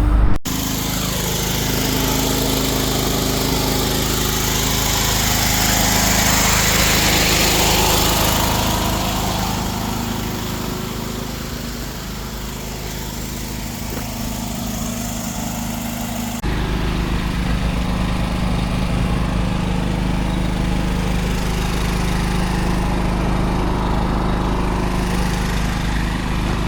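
A small engine running steadily at a constant speed, with an even drone. Its sound changes abruptly about sixteen seconds in.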